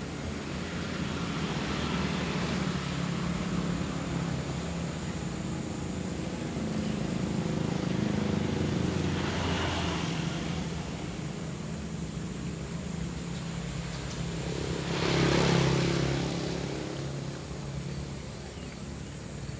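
Motor engines running, a steady low hum with vehicles swelling past, the loudest pass about fifteen seconds in.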